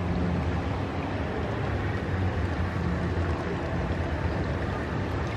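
Steady low rumble with a constant hum, typical of a running motor.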